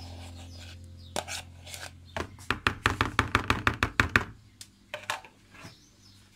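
A metal utensil tapping against the rim of a plastic mixing bowl to knock whipped egg whites off it. A couple of single taps come first, then a quick run of about seven sharp taps a second for some two seconds, then a few stray taps.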